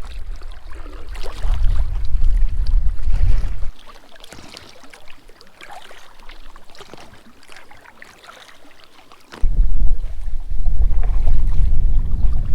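Paddle strokes and water sloshing and splashing around an inflatable packraft, in irregular strokes. A heavy low wind rumble on the microphone cuts out abruptly about four seconds in and comes back just as suddenly about nine seconds in.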